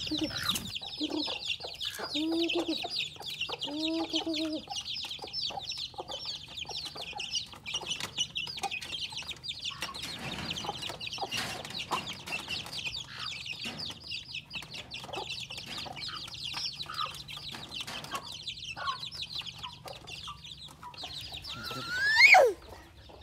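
Chicks cheeping continuously in a fast, high chatter, with a hen giving a few low clucks in the first seconds as they feed on rice. About a second before the end, a single loud squeal rises and then falls in pitch.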